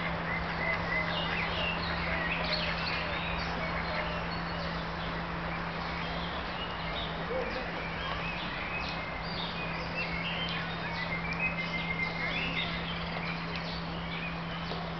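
Small birds chirping and singing, many short high calls and trills throughout, over a steady low hum and background noise.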